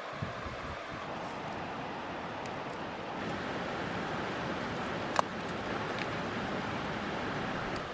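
Steady rush of a river running over shallow rapids, with one sharp snap about five seconds in.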